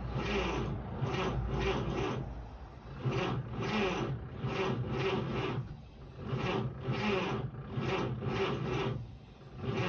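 1946 Chevrolet Fleetmaster's inline-six engine cranked over by its weak 6-volt starter motor, turning slowly in a rasping beat of about two strokes a second, with a few short dips. The starter is the weak point; the owner calls it terrible.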